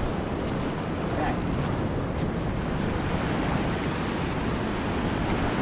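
Small waves washing steadily onto a sand beach, with wind rumbling on the microphone.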